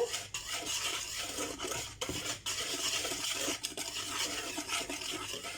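A utensil stirring dry ingredients (sifted flour, cocoa powder, baking powder, salt and sugar) in a mixing bowl: a continuous scraping and rustling with small clicks against the bowl.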